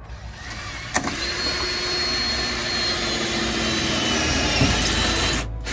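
Cordless drill running steadily as it bores a pilot hole through the van's sheet-metal body, with a brief break near the end.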